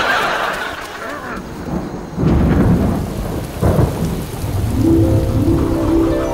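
Thunderstorm: rain falling, with a loud rumble of thunder coming in about two seconds in and swelling again shortly after. Near the end a few steady musical notes come in over the rain.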